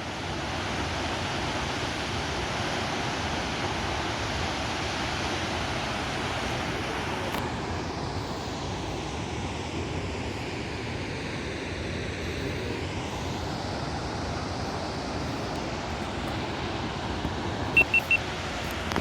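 Steady rushing roar of Jog Falls, the tall waterfall's plunging water heard as an even wash of noise. Three short high beeps sound near the end.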